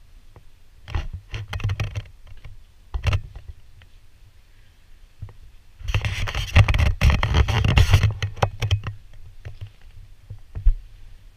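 Irregular bursts of rubbing, scraping and clicking from the camera being handled in its case while it is carried. There are short bursts about one and three seconds in, and a louder, denser stretch of scraping from about six to nine seconds in.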